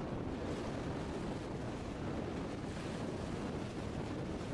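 Steady wind buffeting the microphone over a constant wash of open water, with no distinct engine or horn standing out.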